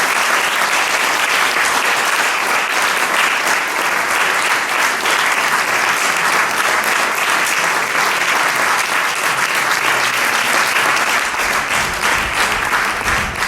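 Theatre audience applauding: dense, steady clapping from many hands, sustained without a break.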